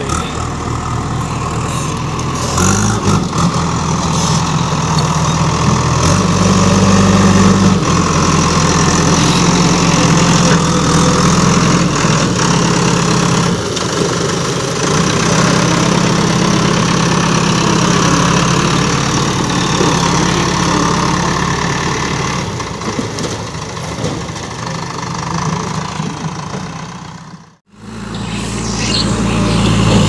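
JCB backhoe loader's diesel engine running and working under load, rising and easing in strength as the front bucket pushes and levels dirt. The sound cuts out for a moment near the end, then the engine comes back.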